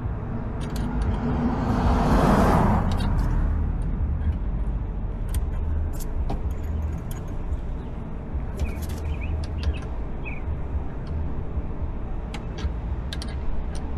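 Scattered light metal clicks of hand tools working on a motorcycle's gear shift linkage, over a steady low rumble, with a brief swell of rushing noise about two seconds in.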